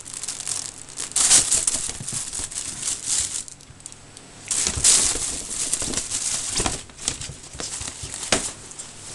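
Fabric cat tunnel crinkling and rustling in irregular bursts as a miniature dachshund puppy bites, tugs and pushes into it, with a short lull near the middle.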